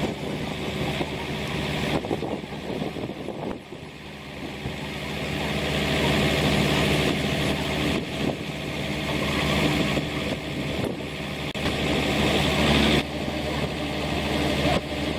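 Mobile crane's diesel engine running under load while lowering a boat, growing louder through the middle and dropping back suddenly near the end.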